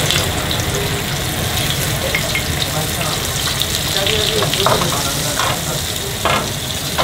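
Shirako (cod milt) for a meunière frying in hot oil in a frying pan: a steady sizzle and crackle. A few sharper pops or clicks come in the second half.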